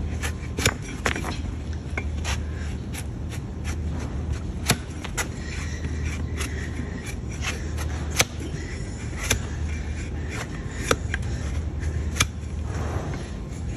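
A flat-bladed hoof-trimming knife paring slices of horn from a donkey's hoof: scraping with irregular sharp cracks, about one a second, as the blade shears through.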